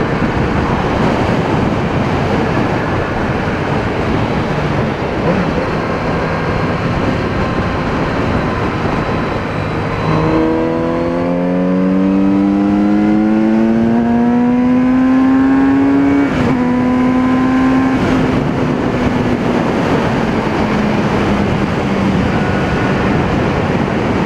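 Kawasaki Z900RS inline-four with a sport exhaust, ridden at first under a steady wind rush. About ten seconds in it accelerates hard, its exhaust note rising for about six seconds. A quick upshift follows, then it holds speed with the note easing slightly.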